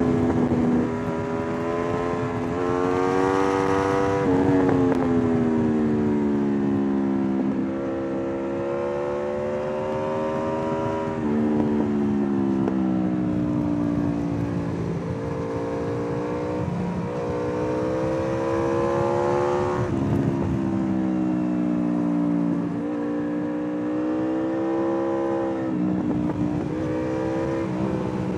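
A 2013 Aprilia RSV4 R APRC's V4 engine under riding load, its pitch climbing under throttle and sinking as the bike slows, with sudden drops in pitch at gear changes several times. Wind and road noise run underneath.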